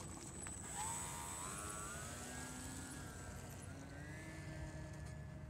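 Small battery-powered RC model plane's electric motor and propeller whining as it throttles up for a takeoff run, the pitch rising from about a second in, climbing again around four seconds in, then holding steady.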